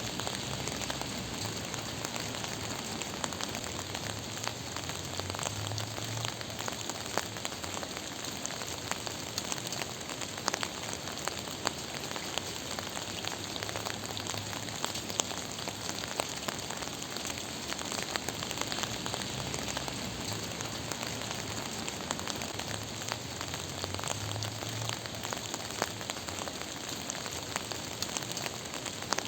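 Steady gentle rain falling on a surface, a continuous patter of many individual drops ticking over the hiss, with a soft low rumble that swells and fades a few times.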